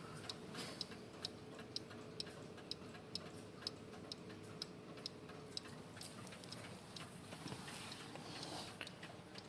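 Dutch wall clock's pendulum movement ticking steadily and faintly, about two ticks a second.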